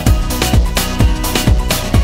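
Background music with a steady electronic dance beat, a kick drum hitting about twice a second.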